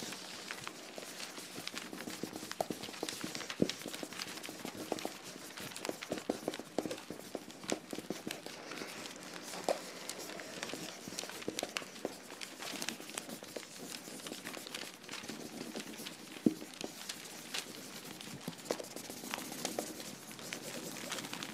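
A steady hiss with many small irregular clicks and knocks scattered through it, two of them sharper than the rest, about three and a half seconds in and again about sixteen seconds in.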